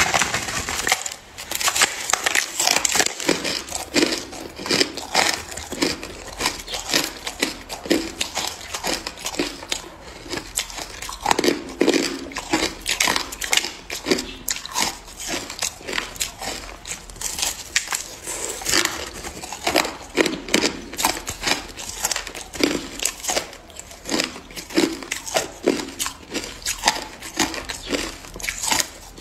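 Packed, snow-like ice crunching and crackling close up in a dense, irregular run of crisp crackles, with heavier crunches now and then.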